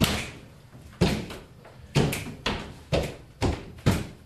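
Sharp percussive hits in a loose rhythm, about one a second with quick extra hits between, each ringing briefly in the room.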